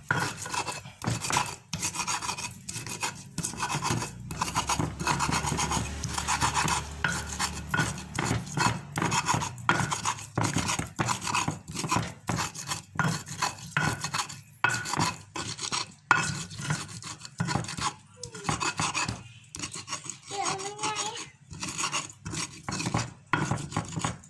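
Pestle grinding and scraping a wet peanut-and-chili rujak paste in a stone mortar (cobek), in rapid repeated rasping strokes.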